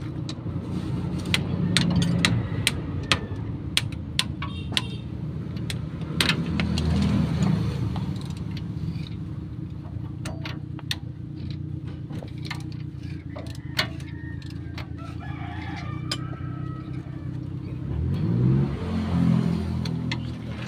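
Irregular sharp metallic clicks and taps of hand tools working on a van's front suspension, over the steady hum of an engine running. Near the end the engine's pitch rises sharply as it revs.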